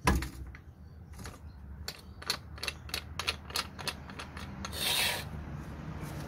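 Bottle jack being let down from under a car's rear suspension arm: a sharp knock, then a run of short clicks and creaks as the ram lowers and the load comes off, and a short rasping rush about five seconds in.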